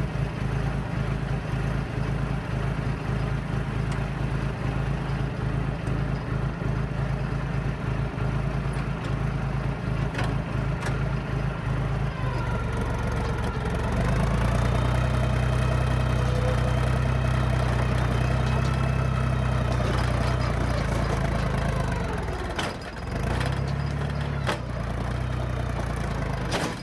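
John Deere crawler dozer's diesel engine running, then revving up and labouring under load from about halfway through as it pulls on a chain to bring down a leaning dead tree. The engine note sags briefly near the end and then picks back up.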